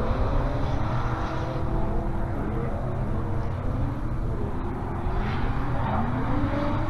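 Cars driving past with their engines running and revving, the engine pitch sliding up and down, over a steady deep low rumble.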